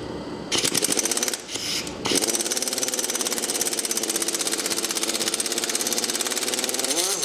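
Pneumatic impact wrench (rattle gun) hammering on a seized stud with a nut welded onto it. Two short bursts come first, then a steady run of rapid hammering for about five seconds, which winds down with a falling whine at the end.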